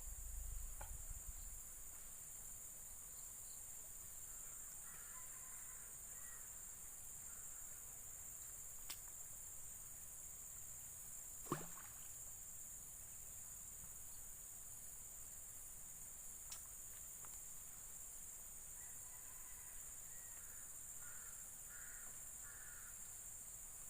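A steady, high-pitched drone of insects by the river, with faint calls twice and a few sharp clicks, the loudest about halfway through.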